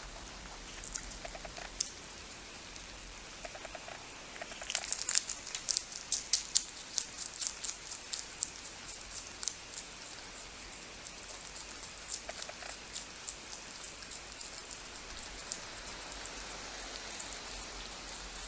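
Lop-eared rabbit chewing spinach leaves: a run of quick, crisp crunching clicks, densest from about five to ten seconds in, then thinning out over a faint steady hiss.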